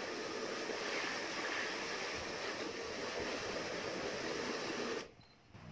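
A handheld electric hot-air blower runs over a bare wooden table-tennis blade with a steady rushing hiss, then is switched off suddenly about five seconds in.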